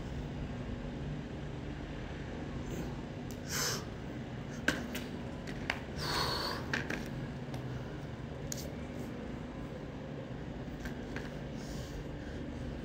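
A few short, breathy exhalations of exertion during handstand push-ups, with several sharp light clicks and knocks from handling the push-up bars and landing, over a steady low background hum.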